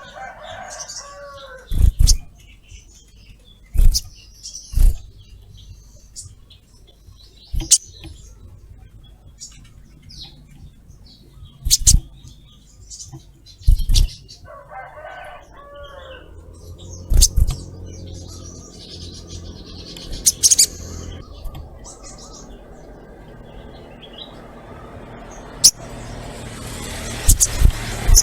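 Olive-backed sunbird giving scattered high, thin chirps, broken by sharp fluttering wing-beats and knocks every one to four seconds. A high insect hiss builds near the end.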